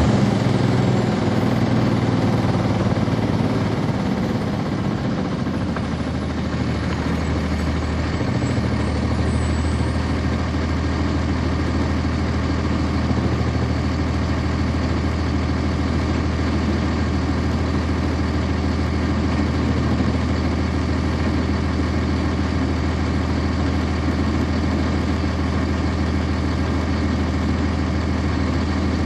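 Cummins ISC inline-six diesel of a 1999 NovaBus RTS transit bus, heard from on board. It winds down over the first few seconds, then settles into a steady idle, as at a stop.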